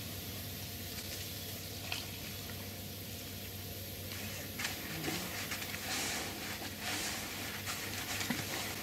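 A hand stirring and working damp fishing groundbait in a plastic bucket, a gritty, crackly rustling with many small clicks that starts about halfway through, after a quiet steady hiss. The groundbait has just had its first portion of water added and is still dry and crumbly.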